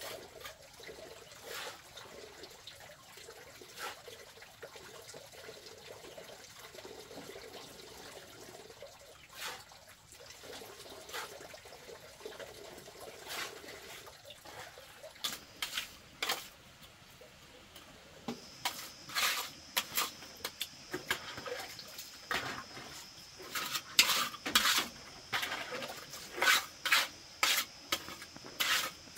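Faint ambience with a few light clicks, then from about halfway repeated wet scraping strokes as a hand tool works wet mud, getting quicker, about two a second, toward the end. A steady high tone sounds beneath the strokes from about two-thirds in.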